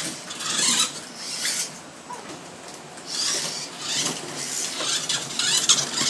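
Radio-controlled model cars running on a track: motor whine and hiss that swell and fade in several surges as the cars speed up and pass.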